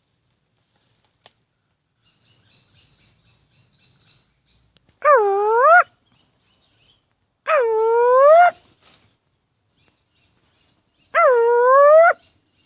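An animal gives three drawn-out calls, each about a second long and a couple of seconds apart, dipping in pitch and then rising. Faint high twittering comes before the first call.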